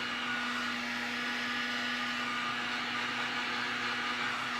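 Electric sleeper HVAC blower motor running steadily with a whirring hum and a higher whine, a motor that the owner says draws heavy amperage and suspects may have worn brushes or internal arcing.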